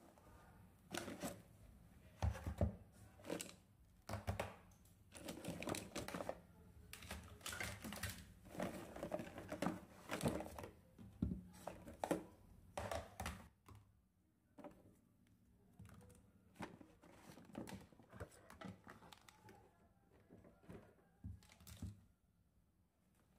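Small plastic toys and packaged toy sets being handled and lifted out of a fabric storage box: irregular clicks, knocks and light rustling, busy for the first half and sparser later.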